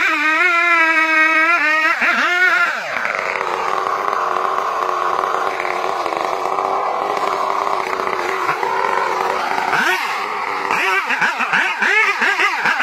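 Large chainsaw cutting at full throttle, its pitch wobbling under load. About two seconds in it drops to idle and runs rough and steady for several seconds. Near ten seconds in it revs up again and runs under load, pitch wavering.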